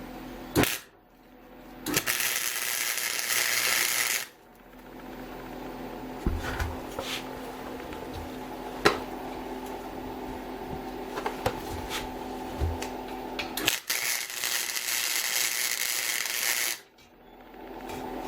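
Two bursts of welding, a crackling hiss about two and three seconds long, with a steady hum and scattered clicks between them as a small piece of steel angle is welded to a metal pedestal.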